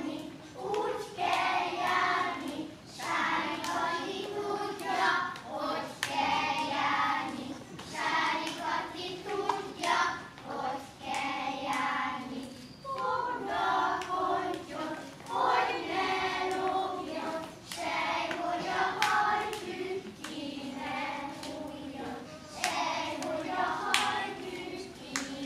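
A group of young children singing a song together, with sharp claps or stamps now and then through the singing.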